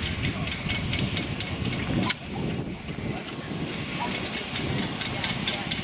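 Antique stationary gas engines running, a rapid, uneven mechanical clicking over a low rumble, with a sharp clack about two seconds in.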